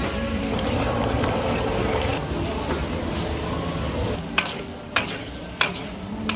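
Food sizzling in a large hot wok: beaten egg frying, then fried rice with cabbage being stir-fried with a metal ladle and spatula. In the second half, three sharp metal clicks of the utensils striking the wok.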